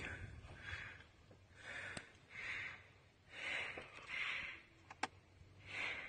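Faint, quick breathing close to the microphone, a soft breath about once a second, with a couple of faint clicks.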